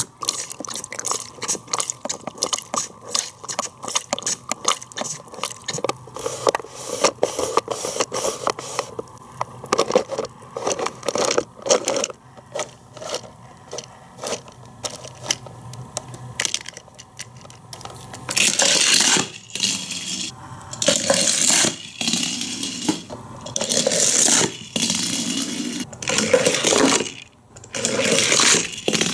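Plastic mechanism of a Hot Wheels Race & Rinse car wash playset clicking rapidly as it turns, carrying a die-cast car up through the wash tower. About two-thirds of the way in, it gives way to a run of louder, hissing rushes, each a second or two long.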